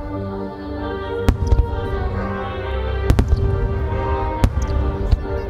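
Aerial firework shells bursting, about five or six sharp bangs in quick pairs and singles, over steady music accompanying the display.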